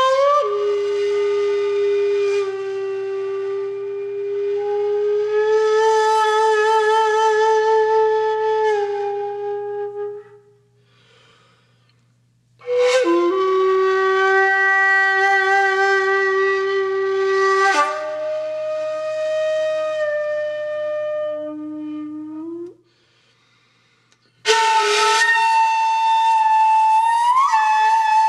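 Music: a slow melody of long held, wavering notes on a single wind instrument, some ending in an upward bend, played in three phrases with a pause of about two seconds between each.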